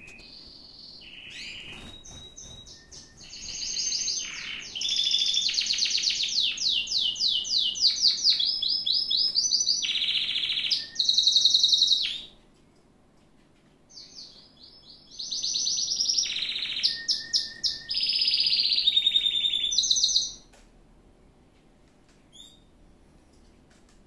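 Caged canary singing: a few single chirps, then two long song phrases of rapid, high trills and rolls, each lasting several seconds, with a pause of about two seconds between them. Only faint chirps follow near the end.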